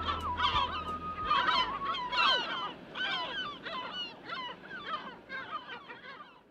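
A flock of birds calling in quick, overlapping honking cries that gradually fade out. Under the first two seconds, the last held notes and bass of the music stop.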